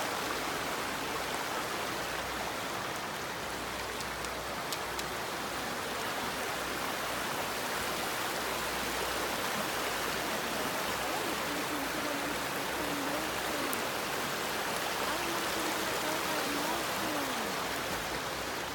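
Steady rush of running water in the rainforest, with faint distant voices in the second half.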